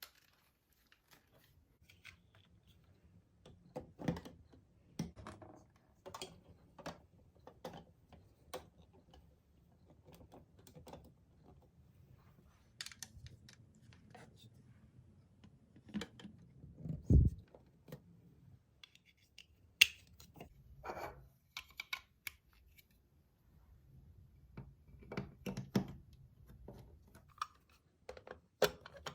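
Plastic marble run building blocks clicking and knocking irregularly as they are handled and fitted together, with one heavier thump partway through.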